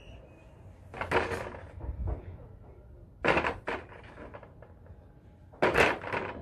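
A man doing slow squats with a small weight hanging on a cord into a plastic bucket: three short noisy bursts about every two and a half seconds, in time with the squats, with a few faint clicks between.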